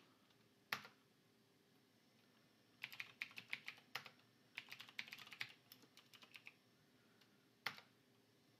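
Typing on a computer keyboard: a single keystroke, then a quick run of keystrokes lasting about four seconds, and one harder key press near the end.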